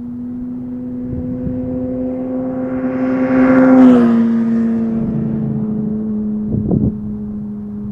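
Motorcycle engine running at a steady pace, its pitch creeping up and then dropping a little about four seconds in as the throttle eases, with a couple of brief knocks near the end.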